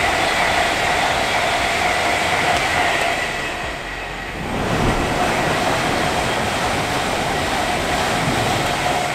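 LNER Azuma high-speed train passing at speed: a loud steady rush of wheels and air with a high hum over it. The sound dips about four seconds in, then swells again as a train passes close by.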